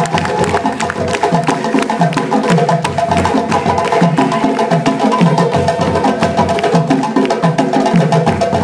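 West African drum ensemble playing live: several djembes struck by hand in quick, dense strokes over a repeating low pattern from stick-played dunun bass drums, a steady driving rhythm.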